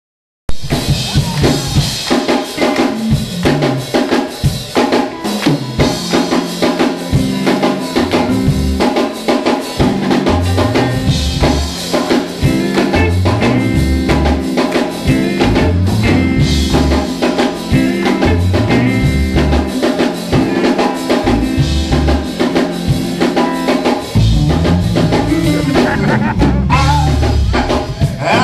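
Live church gospel band playing an upbeat instrumental groove: drum kit with snare and cymbals over a moving bass line, with guitar. It begins abruptly about half a second in.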